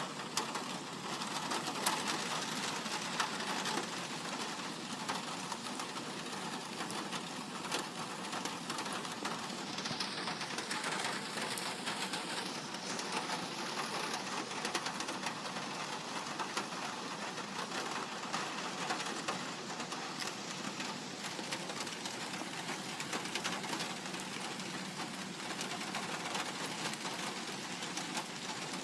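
Light rain falling on a metal roof: a steady, dense ticking of drops on the sheet metal.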